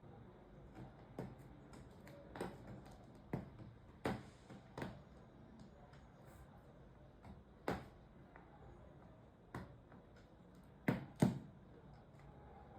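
Scattered short knocks and taps at irregular intervals, about a dozen, the loudest two in quick succession near the end.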